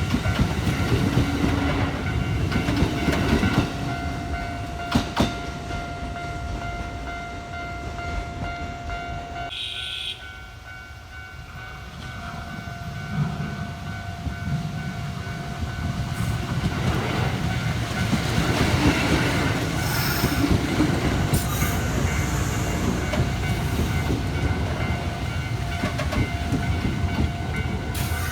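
Electric commuter trains passing: a heavy rumble with the clickety-clack of wheels over rail joints, easing off about ten seconds in and building again as another train comes through. A steady ringing tone runs over it, the level-crossing warning bell, and a brief high whistle-like sound comes about ten seconds in.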